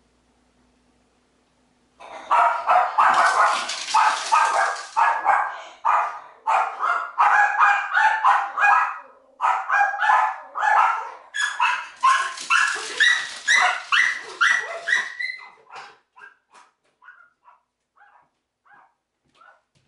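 A dog barking, starting about two seconds in with loud barks in quick succession; after about fifteen seconds the barks turn fainter and more spaced out.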